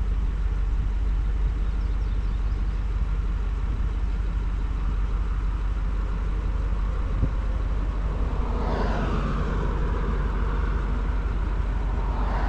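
Pickup truck's engine idling while stopped, a steady low rumble heard from inside the cab.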